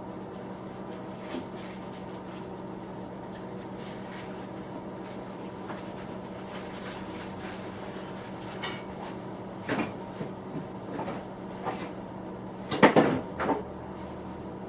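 A few short knocks and clunks of metal machine parts being handled, with the loudest cluster of several knocks about 13 seconds in, over a steady background hum.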